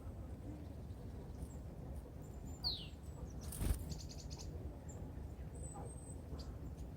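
Small birds at a winter feeder giving scattered short calls: a downward-slurred note about two and a half seconds in, a quick run of ticking notes a second later, and a few thin high notes near the end. A single sharp knock comes just before the ticking, over a steady low rumble.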